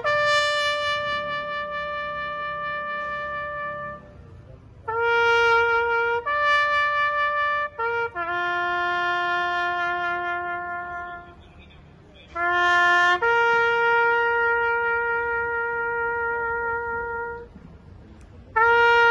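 Solo trumpet playing a slow melody of long held notes, each phrase rising from a short pickup note to a long sustained one, with brief pauses between phrases.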